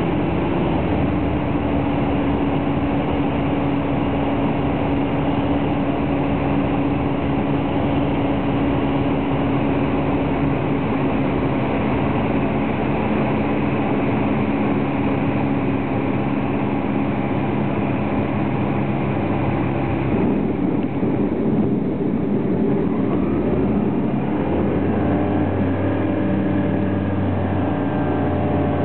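Evektor EV-97 Eurostar microlight's Rotax 912 engine and propeller, heard from inside the cockpit, running steadily at low power on approach and landing roll. About twenty seconds in the note changes, and from about twenty-four seconds a deeper, stronger engine note with slowly rising pitch sets in as power comes up for the touch-and-go takeoff.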